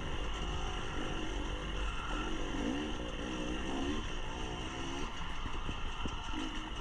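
Dirt bike engine running under throttle while being ridden, heard close up from the bike itself. Its pitch rises and falls repeatedly as the rider opens and closes the throttle.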